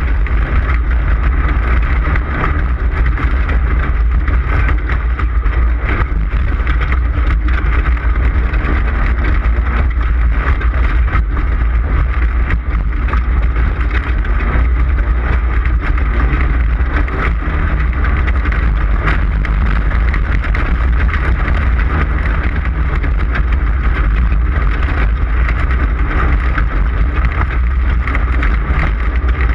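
An off-road race vehicle's engine running hard at speed, heard from on board, with heavy wind rumble on the microphone and frequent short knocks and rattles from the rough ground.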